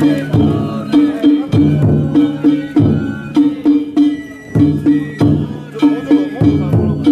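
Danjiri bayashi festival music: taiko drum strikes in a steady, repeating rhythm with ringing metal hand gongs.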